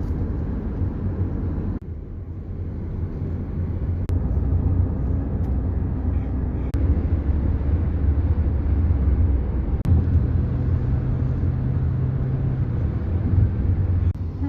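A car driving: steady low rumble of engine and road noise heard from inside the cabin, with a few brief clicks.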